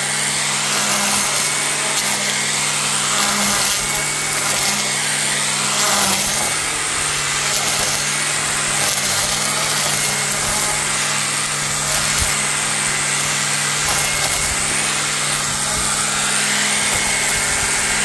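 Milwaukee Quik-Lok cordless string trimmer running steadily at speed, its motor humming while the spinning head swishes through dense weeds and grass. A few brief, sharper strikes come as it catches thicker stems.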